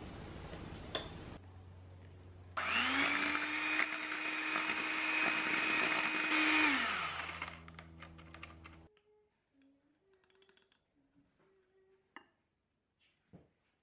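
A kitchen appliance's electric motor spins up about two and a half seconds in, runs steadily at a high whir for about four seconds, then winds down.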